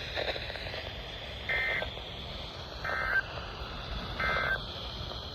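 NOAA Weather Radio SAME end-of-message data tones: three short, buzzy digital bursts about 1.3 seconds apart, over steady radio hiss, marking the end of an alert broadcast.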